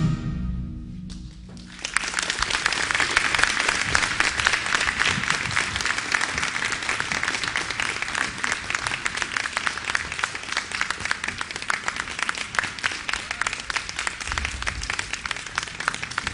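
A school concert band's final chord cuts off at the start and rings out briefly in the gymnasium. About two seconds in, the audience breaks into applause, which carries on steadily and thins slightly near the end.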